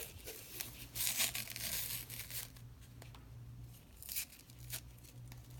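Soft packing material being torn and crinkled as a wrapped item is unwrapped, in a long stretch of tearing about a second in and a short burst near the end. A faint steady low hum runs underneath.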